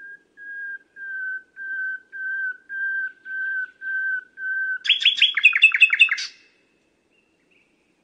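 Common nightingale singing: a slow series of about nine pure whistled notes on one pitch, each a little louder than the last, then about five seconds in a fast burst of quick down-slurred notes that stops abruptly.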